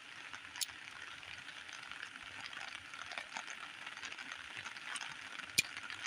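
Rain falling in a steady hiss, with a couple of small sharp clicks, one well under a second in and a sharper one near the end.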